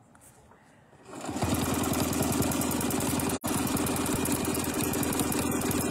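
Sewing machine starting up about a second in and stitching steadily at speed, its needle strokes an even rapid rhythm, with a momentary dropout midway.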